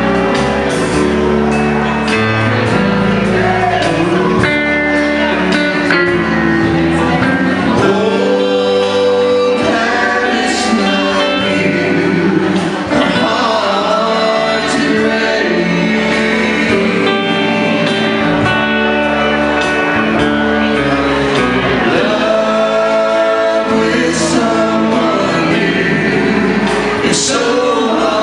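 Live country band playing through a PA: electric guitars and electric bass behind a lead singer.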